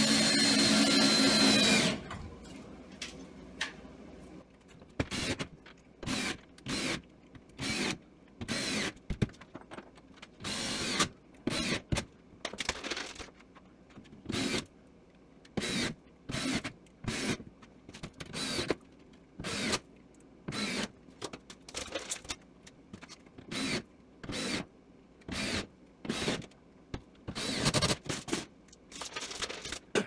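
Cordless drill driving a screw into cement backer board for about two seconds at the start. After that, a long run of short, separate scraping and knocking sounds, one every half second to a second.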